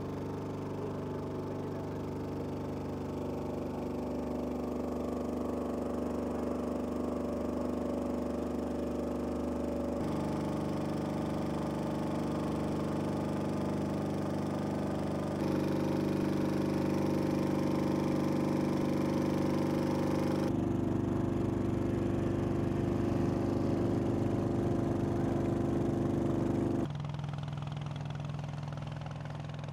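Motorboat engines running steadily, the engine note changing abruptly several times as one stretch of sound gives way to another.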